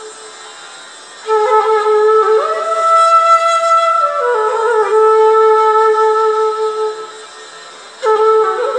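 Bamboo transverse flute playing a slow melody solo. After a short pause a phrase begins about a second in, slides up to a higher held note, steps back down to a long sustained note that fades away, and a new phrase starts near the end.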